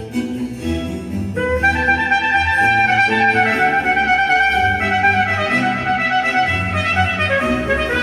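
Trumpet playing a melody of long, held notes over an orchestral accompaniment. The trumpet comes in about a second and a half in.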